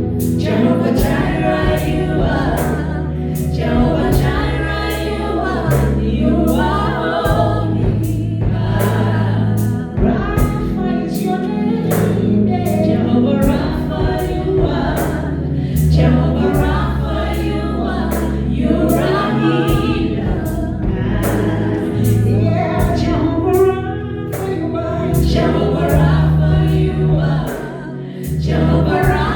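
Choir singing gospel worship music over a band, with a steady beat and sustained bass.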